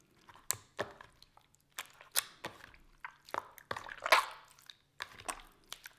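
Freshly activated clear glue slime, still bubbly, squeezed and stirred by hand in a plastic tub: irregular wet squelches and sticky pops, loudest about four seconds in.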